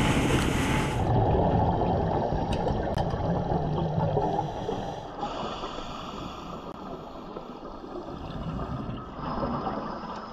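Dive boat running fast over choppy sea: water rushing and slapping along the hull with wind on the microphone. About five seconds in it gives way to the quieter underwater hiss of a scuba dive, with a rush of bubbling near the end.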